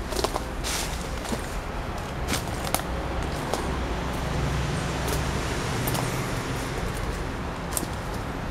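Footsteps on dry leaves and twigs, with scattered irregular crackles and snaps, over a steady low rumble of city traffic.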